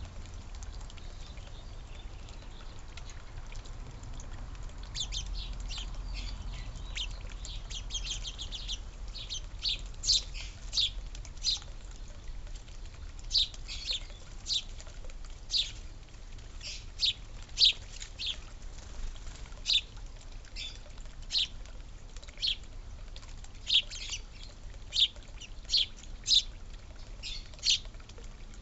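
Birds chirping: short, sharp calls that fall slightly in pitch, a dense flurry of them early on, then one or two a second, over a faint low rumble.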